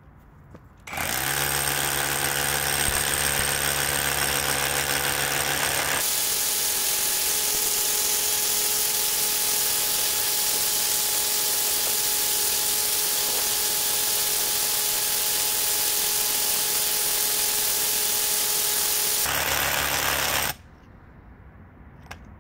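Cordless Parkside Performance PKHAP 20 A1 hammer drill, 3-joule SDS-Plus, hammer-drilling into a stone block with a 25 mm bit at its highest setting. It starts about a second in, runs steadily and stops suddenly near the end. The middle stretch is fast-forwarded, which raises its pitch.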